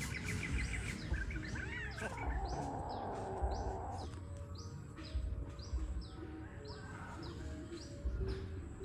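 High, short chirps, each falling in pitch, repeating about twice a second over a low rumble, with a brief squeal at the very start.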